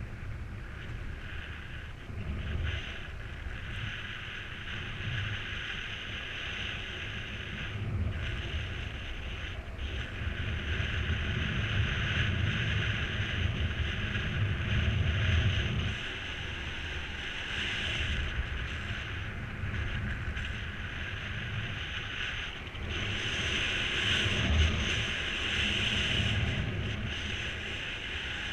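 Airflow rushing past and buffeting the microphone of a mini paraglider in flight: a steady rushing hiss over a low rumble that swells and eases every few seconds.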